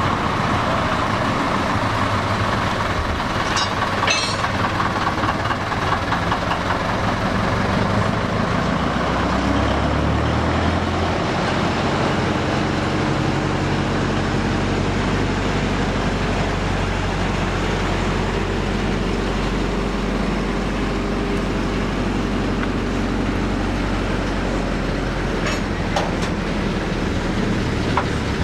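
A slow-moving line of narrow-gauge locomotives, a small diesel coupled to steam engines, rolling past with the diesel running and a steady hiss throughout. There are two sharp metallic clicks, one about four seconds in and one near the end.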